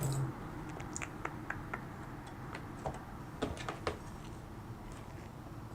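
Scattered light clicks and taps of lockpicking tools being handled at a lock: a tension wrench and picks, in irregular clusters of a few clicks.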